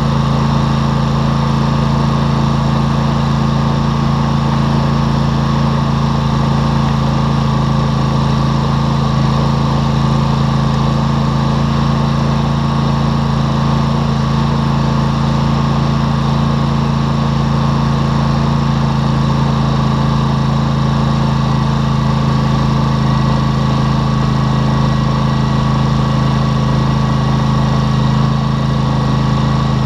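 ATV engine running at a steady speed, heard close up through a camera clamped to the machine.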